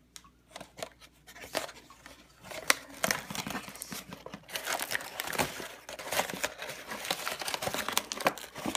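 Paper and cardboard tea packaging crinkling and rustling as hands rummage through a box of tea bags, with many small ticks and knocks. It is sparse at first and gets busier from about two and a half seconds in.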